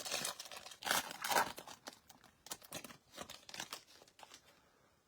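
Plastic wrapper of a trading-card pack crinkling and tearing as it is torn open by hand, in irregular rustling bursts loudest about a second in, dying away near the end.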